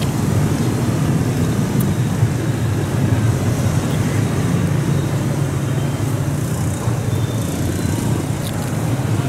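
Steady city street traffic, mostly small motorbike engines running close by, a continuous low rumble.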